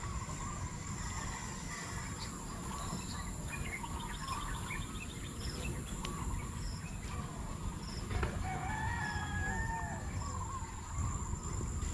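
A rooster crowing a few times, with small birds chirping throughout, all fairly faint.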